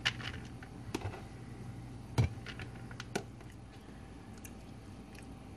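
Light clicks and taps of a serving spoon and kitchen tongs against a plastic container and plates as food is dished up, with one sharper knock about two seconds in.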